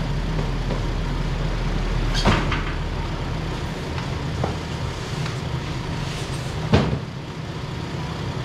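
Truck engine idling with a steady low rumble, with two loud sharp knocks, about two seconds in and near seven seconds, and a few fainter clunks.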